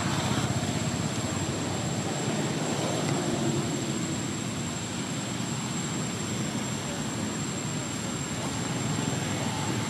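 Steady drone of motor traffic with a constant thin high-pitched whine above it.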